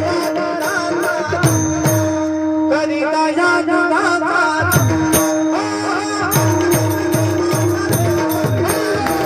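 Marathi devotional gaulan music: a held harmonium-style drone and an ornamented melody line over tabla, whose bass drum glides down in pitch on its strokes and settles into a steady beat about two-thirds of the way through, with small hand cymbals ticking along.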